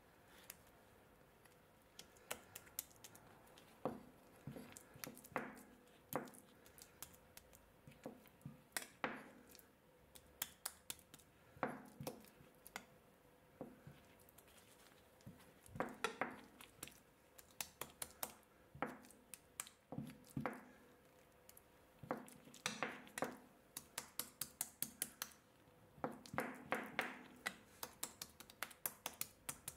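A metal spatula pressing, patting and scraping a block of fresh butter on a wooden board: irregular clusters of soft taps and clicks with wet, squishy scrapes as the butter is shaped.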